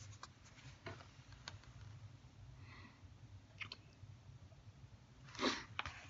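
Quiet handling of a hardback book held close to the microphone: scattered faint clicks and rustles, with one louder brushing rustle about five and a half seconds in as the book is moved, over a low steady hum.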